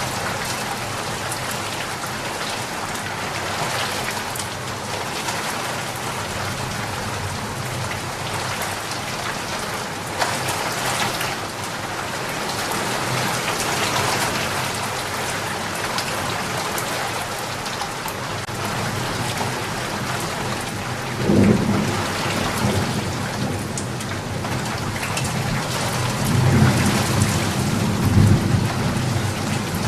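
Steady heavy rain falling. Rolls of thunder rumble in about two-thirds of the way through and again near the end, louder than the rain.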